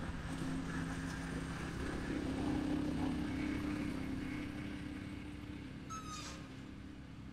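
A low, steady engine hum that grows louder about two seconds in and then fades away, like a motor passing by. About six seconds in, a brief high-pitched animal call is heard.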